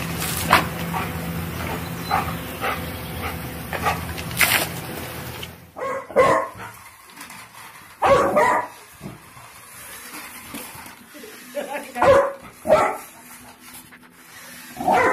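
A steady rushing noise with scattered clicks, then a young Labrador puppy barking in short bursts several times: about six seconds in, around eight, twice near twelve and thirteen seconds, and again at the end.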